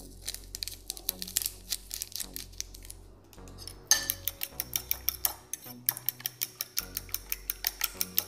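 A metal fork beating eggs and mashed banana in a ceramic bowl, clinking against the bowl about four times a second, with a short pause about three seconds in.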